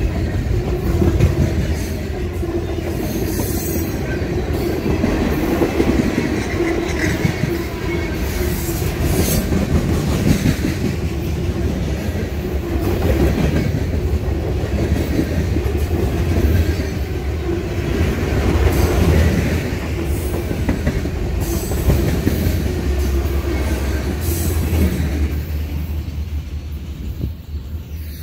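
Freight train of lumber-loaded centerbeam flatcars rolling past close by: a steady rumble of wheels on rail with frequent sharp clicks and clanks. The sound fades in the last few seconds as the end of the train passes.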